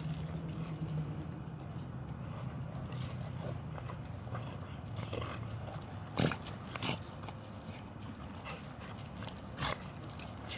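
Two dogs play-fighting, with growls, snaps and scuffling paws on wood chips, and a few sharp, short sounds around six and seven seconds in and again near the end.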